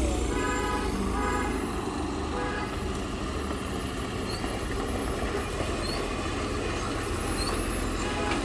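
Heavily loaded Tata lorry's diesel engine labouring as the truck climbs slowly round a dirt hairpin bend and passes close by. Short horn toots sound near the start.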